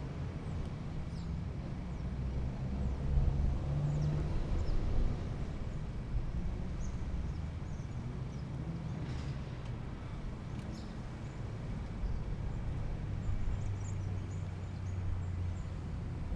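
Shopping-centre carpark ambience: a steady low rumble of car engines and traffic, swelling louder about three to five seconds in and again near the end, with short bird chirps scattered over it.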